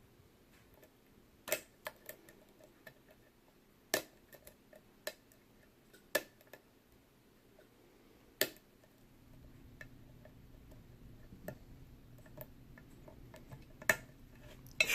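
Small, sharp metallic clicks at irregular intervals, some louder than others, from a lock pick and tension tool working the pin tumblers of a vintage Yale & Towne safe deposit box lock.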